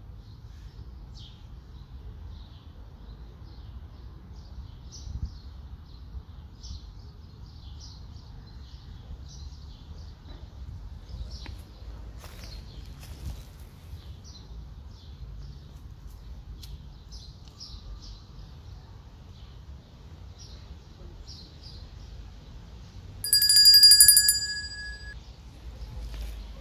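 Small birds chirping in short, repeated calls over a low outdoor rumble. About 23 seconds in, a bright bell tone rings out loudly for about two seconds: the ding of a subscribe-button sound effect.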